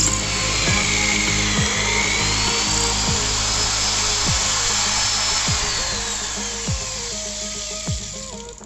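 A power tool, drill-like, running with a steady grinding noise and a faint drifting whine. It fades out over the last couple of seconds. Background electronic music with deep falling bass sweeps plays throughout.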